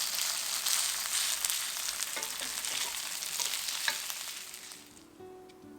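Vegetable pancake batter sizzling in hot cooking oil in a frying pan, fading out about five seconds in as music begins.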